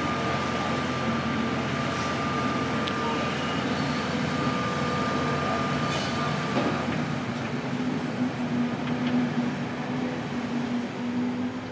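High-reach demolition excavator running steadily, its diesel engine and hydraulics giving a continuous hum with a held whine. A few sharp clicks stand out about two, three and six seconds in.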